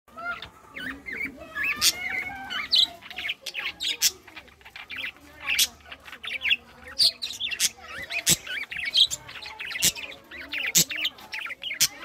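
Caged budgerigars chattering: a busy, continuous mix of warbling calls and frequent sharp, high chirps from several birds at once.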